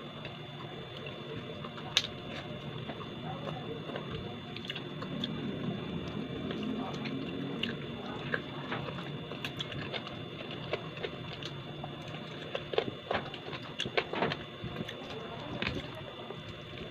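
Eating sounds: a person chewing, with sharp clicks of a spoon and fork against a plate, one loud click about two seconds in and a cluster of them near the end, over a steady background hum.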